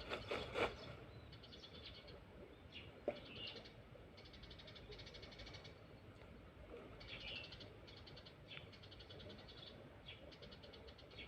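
Faint high-pitched animal calls: short trills of rapid pulses repeated every second or two, with chirping notes in between. A few knocks of handling noise come in the first second, and a sharp click comes about three seconds in.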